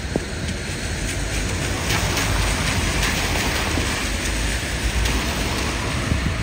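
Outdoor street ambience: a steady rushing, hissing noise over a low rumble, with a few faint ticks.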